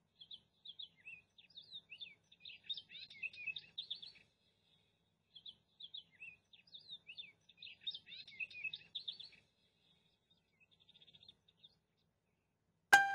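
Small songbird chirping and twittering in two runs of quick high notes, each about four seconds long, followed by a faint rapid trill. A piano note strikes right at the end.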